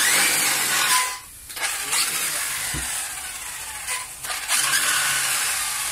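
RC buggy's motor run in bursts of one to two seconds, with a whirring pitch that rises and falls in each burst, while the car is held down.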